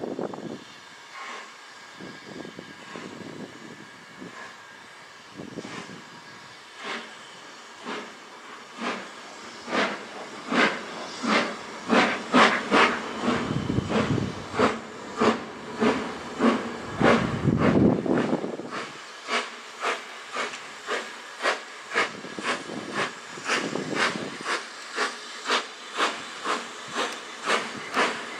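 BR Standard Class 4 4-6-0 steam locomotive No. 75078 pulling away with a goods train: its chimney exhaust beats start slow, about a second apart, and quicken and grow louder to about two a second, over a steady hiss of steam.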